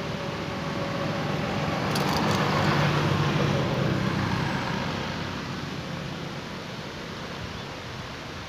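A motor vehicle passing by: its engine rumble and tyre noise swell to a peak about three seconds in, then fade away over a steady hiss.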